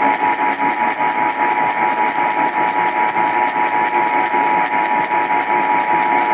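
Emergency Alert System attention signal: the two steady tones of 853 and 960 Hz sounded together, received over AM radio. Static and a fast, even pulsing of interference run behind it.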